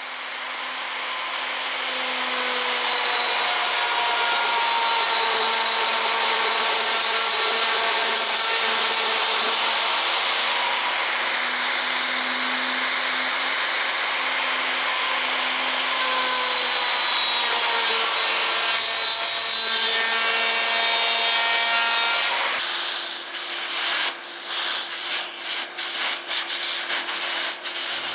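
Festool plunge router running at full speed, routing a butterfly-key mortise in a walnut slab, a steady high whine that dips in pitch for a moment as the bit loads in the cut. About four-fifths of the way through, the steady whine drops away into a quieter, uneven sound with clicks.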